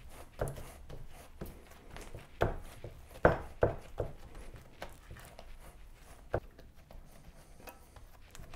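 One hand pressing and patting pizza dough out to the edges of a buttered cast iron pan: soft, irregular pats and taps about a second apart, the loudest a little past three seconds in.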